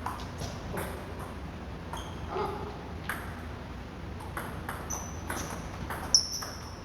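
Table tennis ball clicking off paddles and the table during a rally, a sharp tick roughly every half second at an uneven pace. The loudest hit comes about six seconds in, with a brief high ring.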